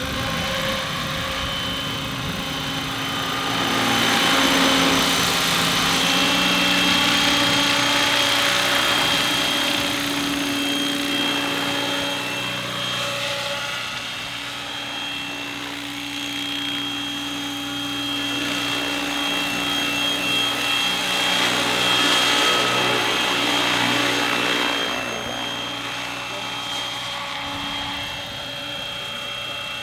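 Radio-controlled scale Robinson R22 model helicopter flying, its motor and rotor running steadily with a high whine. The sound grows louder twice, about four seconds in and again around twenty seconds in.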